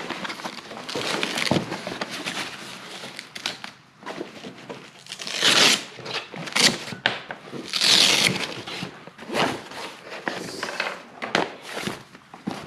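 Rustling and crinkling of a fabric storage bag and its contents being handled and opened, with two louder swishing bursts about five and a half and eight seconds in, and scattered light knocks.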